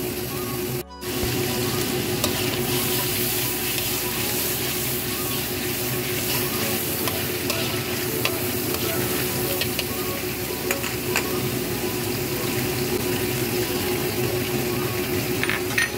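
Red spice paste sizzling as it fries in oil in a wok, with a spatula stirring and scraping across the pan in scattered clicks. The sound breaks off briefly about a second in.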